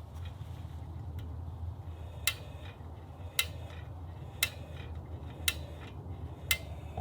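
Five sharp, light clicks, evenly spaced about a second apart, over a steady low rumble.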